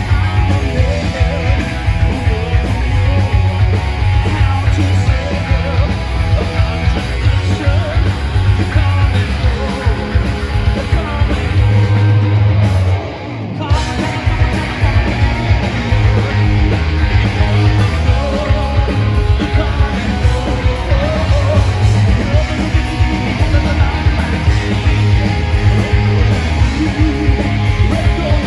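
Loud punk rock music with electric guitars, and singing at times. The bass drops out briefly about 13 seconds in.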